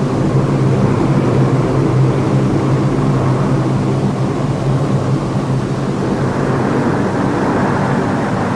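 Steady drone of a Lockheed C-130 Hercules's four turboprop engines in flight: a low, even hum with a few constant tones.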